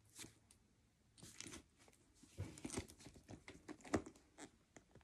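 Faint handling noise: soft rustles and light clicks as a leather purse handle is moved about close to the microphone, with the sharpest click about four seconds in.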